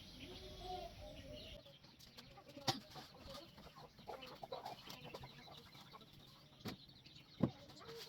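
Chickens clucking faintly, with a few short sharp knocks, the loudest near the end.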